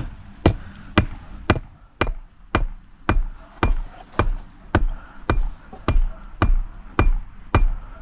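The back of a hatchet head hammering a wooden stake into the ground. About fifteen sharp, steady blows come just under two a second, each with a short ring.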